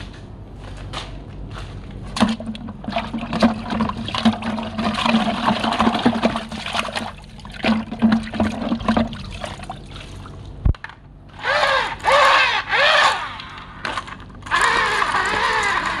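Water sloshing and splashing, with small knocks, as a plastic toy dump truck is scrubbed by hand in a bucket of muddy water. Near the end come several rising-and-falling engine-like revs, then a steady engine-like drone.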